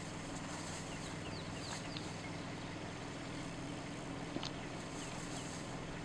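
Steady low hum of an idling car engine, with a few faint, short bird chirps over it and a single soft click a little over four seconds in.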